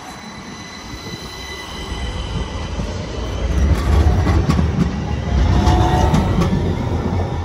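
Gothenburg low-floor tram pulling away from the platform and passing close by: its running gear rumbles louder as it gathers speed, peaking about four to six seconds in, with thin high steady tones over the rumble.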